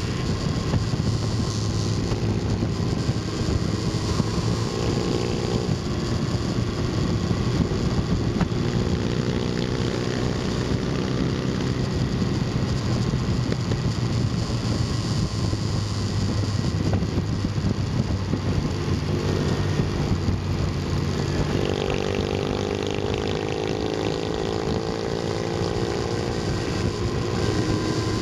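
Motorcycle engine running at road speed, its pitch rising as it accelerates in the last several seconds. Wind rushes over the microphone throughout.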